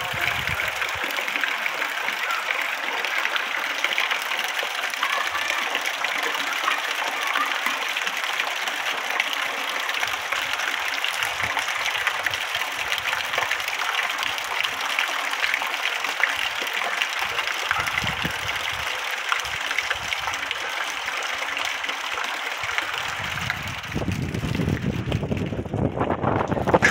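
Steady rain falling on a flooded street, a dense hiss with water running. Near the end, wind buffets the microphone with a low rumble.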